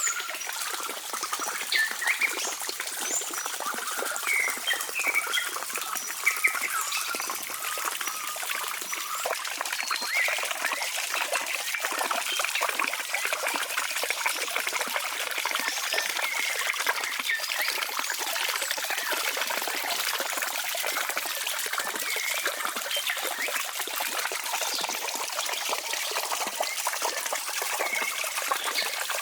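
Water trickling steadily, with short high chirps scattered through the first few seconds.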